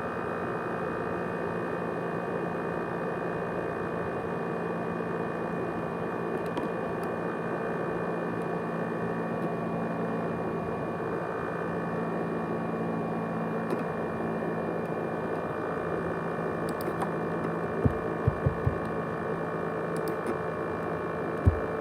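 ASUS X543UA laptop running with a steady whirring hum holding several steady tones, the noise its owner likens to a jet engine. A few dull low thumps come near the end.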